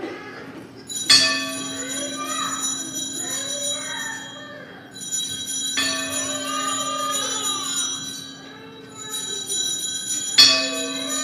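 Altar bells (Sanctus bells) rung three times, about four and a half seconds apart. Each ring starts sharply and fades away with shimmering tones. These are the rings at the consecration and elevation of the Host.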